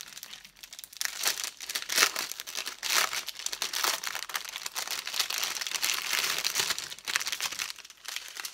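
Clear plastic packaging crinkling and rustling as it is handled and opened, a continuous crackle with its sharpest peaks about two and three seconds in.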